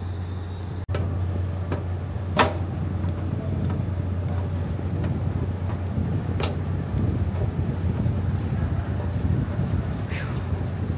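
A steady low hum with a few sharp clicks or knocks over it, the loudest knock about two seconds in.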